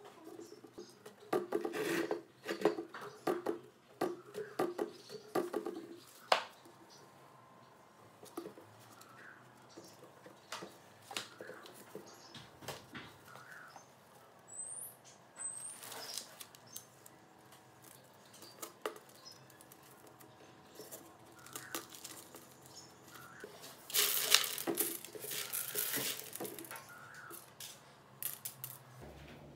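Hands working a cardboard lid on a plastic bucket: scattered clicks, scrapes and rustles, busiest in the first few seconds, with a louder rustling spell near the end. Two short, high rising chirps come about halfway through.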